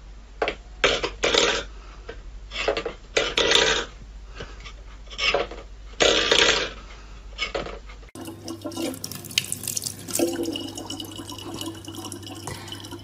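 A steel bowl scraping and clattering on a wooden floor in irregular short bursts as a cat paws at it. About eight seconds in, this gives way to a tap running a thin steady stream of water into a plastic bottle.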